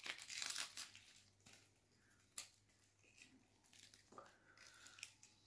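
Dry onion skin crackling and tearing as it is peeled off by hand: faint soft rustles, a little louder in the first second, with one sharper crackle about two and a half seconds in.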